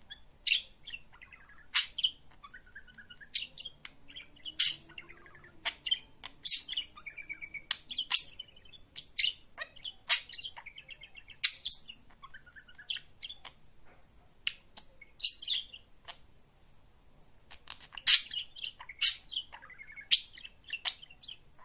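Budgerigar chirping and chattering: sharp, loud chirps every second or so, often in quick pairs, with softer warbling between.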